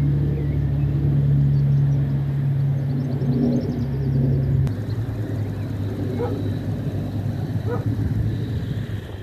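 Car engine running steadily at low revs, its low note dropping and weakening about halfway through.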